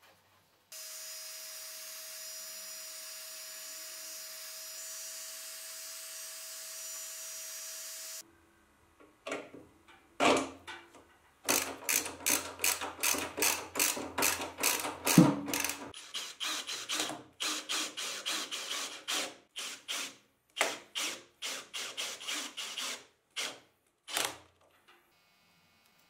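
Ratchet wrench clicking in quick runs of about three clicks a second as a bolt is tightened, after a steady whirring hum with a high whine that lasts about seven seconds and cuts off suddenly.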